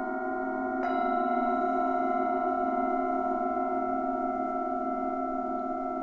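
Singing bowls ringing in several long, steady tones, with a slow wobble in the lower tones. A bowl is struck about a second in, adding brighter tones over the sustained ring.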